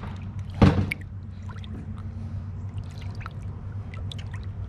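Shallow water sloshing and trickling around a hand holding a peacock bass, worked back and forth to wash water through its gills. One louder splash comes just under a second in, then faint drips and small splashes over a steady low hum.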